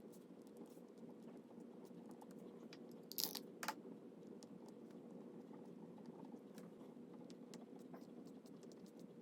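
Quiet room tone: a low steady hum with scattered faint ticks, and two short sharp clicks close together a little over three seconds in.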